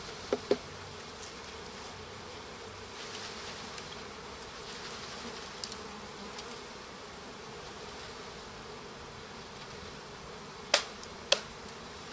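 Honeybees from a package just poured out onto a hive's landing board, buzzing in a steady hum. A couple of light knocks sound just after the start, and two sharp clicks near the end are the loudest sounds.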